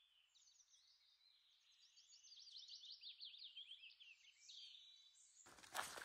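A songbird singing faintly in rapid high-pitched trills of short sliding notes. Near the end it cuts off and a hiker's footsteps start abruptly, much louder.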